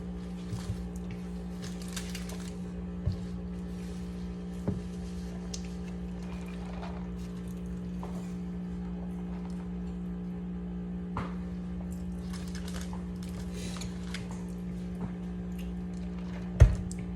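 A steady low electrical hum runs throughout. Over it come light clicks and rustles of things being handled, and one sharp knock near the end.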